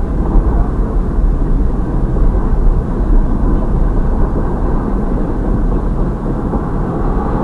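Intermodal freight train's stacked container cars rolling past close by, a steady low rumble heard from inside a stopped car.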